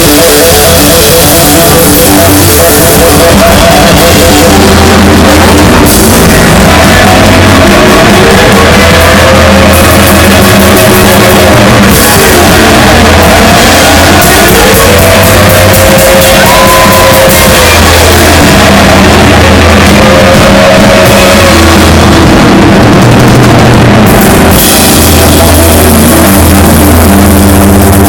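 Live rock band playing very loud: drum kit, electric bass and electric guitar, with the lead guitar holding long notes that bend up and slide back down, twice in the middle.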